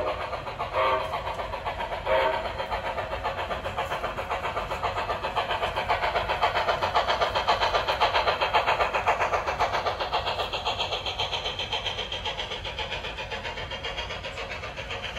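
HO scale model freight train rolling along its track: a fast, even clicking of the wheels that grows louder as the cars pass close and then fades. Near the start there are two short whistle toots from the steam locomotive.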